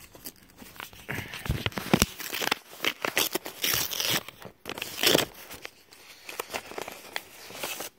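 Paper rustling and crinkling as a letter is taken from a torn-open envelope and unfolded by hand, in irregular crackles with louder rustles about two and five seconds in.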